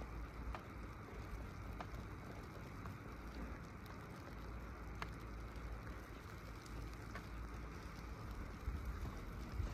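Wind rumbling on the microphone of a rider on a slow fixed-grip chairlift, with a steady hiss and a few faint, sharp ticks.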